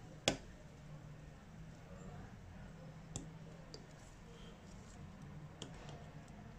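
Small handling clicks, one sharp click near the start and a few fainter ones later, over a low steady hum.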